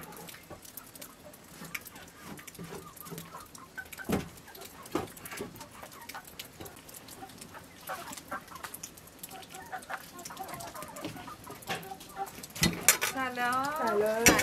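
Chickens clucking, with scattered knocks and clatter; people's voices come in near the end.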